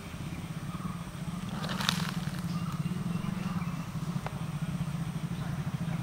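A motor vehicle's engine idling steadily, a low even throb, with a brief crackle about two seconds in.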